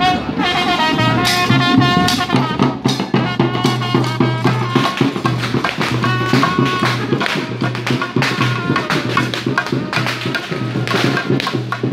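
Procession music: frame drums beaten in a fast steady rhythm, with a wind instrument playing a melody over them and a low note held underneath.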